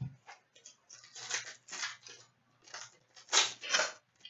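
A plastic trading-card pack wrapper being torn open and crumpled by hand: a run of irregular crinkly rustles, the loudest two near the end.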